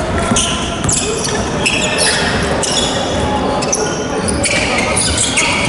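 Sounds of basketball play on a wooden gym floor: sneakers squeak in short, high chirps over and over, and the ball bounces.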